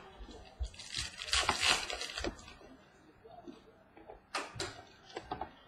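Trading cards being handled and flipped through by hand: paper rustling and sliding, loudest from about one to two seconds in, with a few sharp clicks of cards snapping against each other near the end.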